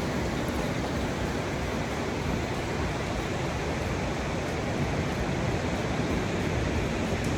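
Ocean surf washing in and out around a sea cave as the tide rises, a steady rushing of water with no distinct breaks.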